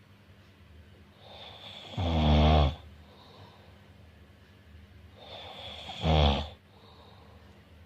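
Snoring: two loud snores about four seconds apart, each swelling up over a second or so before its loudest part.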